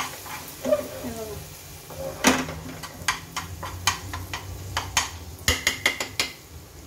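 A steel spoon stirring a thick onion-tomato masala in a pressure cooker pot, clinking and scraping against the metal sides again and again, with the sharpest clink about two seconds in.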